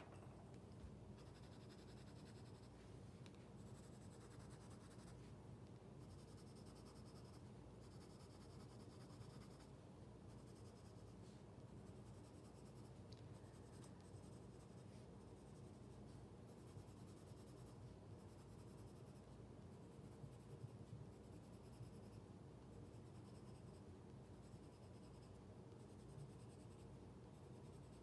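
Colored pencil scratching faintly on sketchbook paper in short strokes that come and go.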